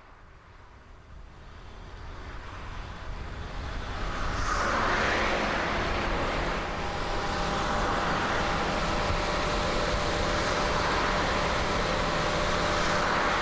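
A Mazda MPV minivan approaching and pulling up, its engine and tyre noise growing louder over the first four seconds, then a steady rush of running vehicle noise.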